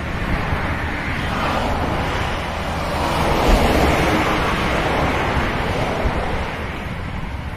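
Wind rushing over the microphone of a moving motorcycle ride, a steady loud rush with a low rumble underneath.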